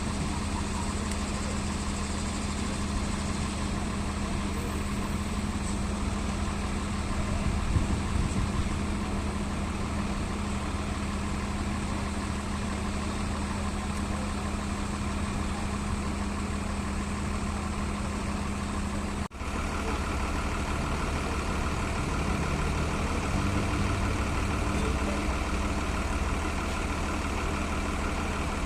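Large bus's diesel engine idling steadily, with a brief break about two-thirds of the way through.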